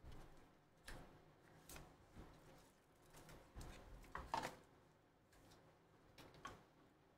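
Near silence broken by faint, scattered taps and rustles, about half a dozen, as a stack of trading cards is slid out of its card-stock box and set down on a table.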